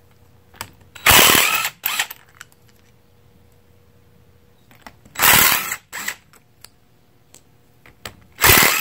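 Cordless impact wrench hammering the ring gear bolts loose on a Ford 9-inch differential carrier: three short bursts, each followed by a shorter one.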